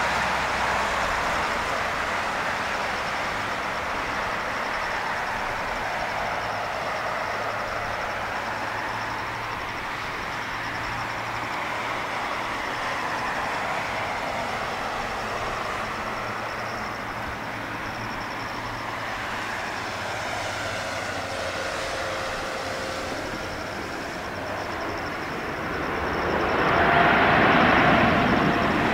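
Boeing 777-200ER airliner landing, its twin jet engines making a steady rushing noise. The noise swells to its loudest near the end, with a thin whine on top, as the jet rolls out on the runway close by.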